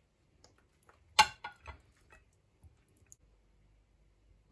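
A serving utensil clinks once sharply against the cookware about a second in, with a short ring, then a few light taps follow as steak is dished onto a plate.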